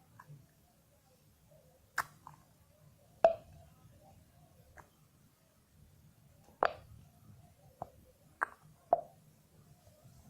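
Scattered short clicks and knocks, about six spread irregularly, from a nearly empty bottle of glue being handled and emptied into a mixing container.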